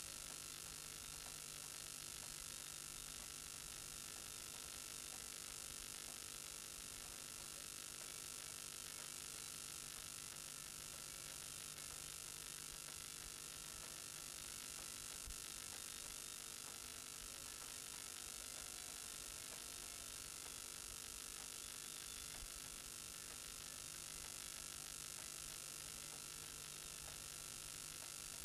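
Steady hiss with a low electrical hum, nothing else happening: recording noise.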